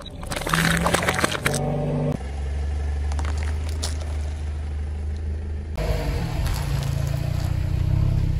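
A car rolling slowly over objects on asphalt, its engine a low, steady hum. In the first second and a half there is a burst of crackling as plastic bottles are crushed under the tyre, then only faint clicks. The sound changes abruptly a few times where separate clips are joined.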